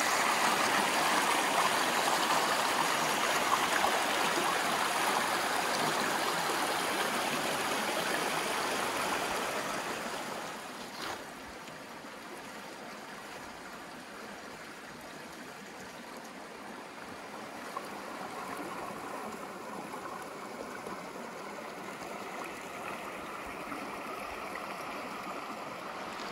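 Small rocky mountain creek rushing over boulders, a steady splashing flow that turns softer and quieter after about ten seconds. A single brief click comes about eleven seconds in.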